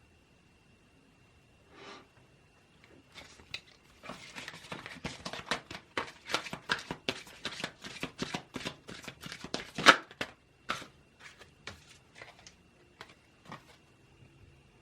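Tarot cards being shuffled: a quick run of card flicks and slaps that thickens about four seconds in, with one sharp slap near the ten-second mark, then thins out into a few single taps.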